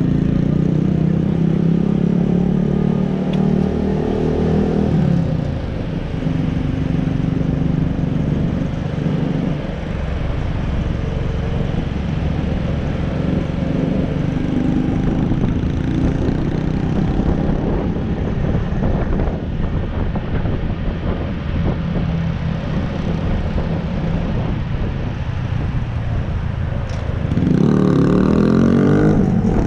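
Honda PCX 125 scooter's single-cylinder engine running on the move, its pitch easing off now and then and climbing sharply near the end as the throttle opens, over wind rumble on the microphone.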